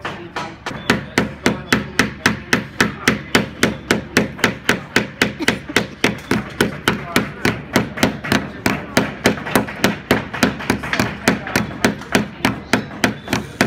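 Small claw hammer tapping nails into a wooden toy race car kit, a quick, steady run of about three to four light strikes a second.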